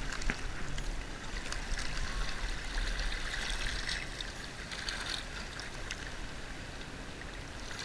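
Shallow sea water lapping and trickling over shell-covered rocks at the shoreline, a steady wash with a few small splashes.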